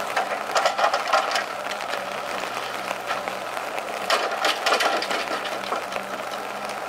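Valmet 840.3 forwarder's diesel engine running steadily while its hydraulic crane works the grapple onto a log. Clusters of knocks and rattles come in the first second and a half and again around four to five seconds in, as the grapple grabs the log.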